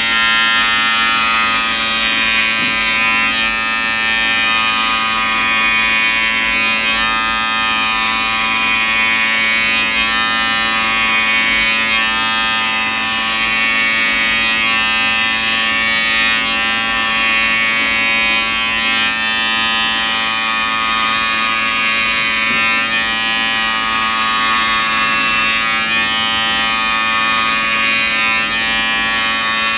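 Wahl Senior electric hair clippers running with a steady buzzing hum while cutting short, tightly curled hair.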